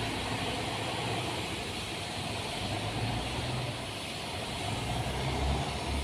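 Low, steady engine drone from a tanker ship moving slowly past.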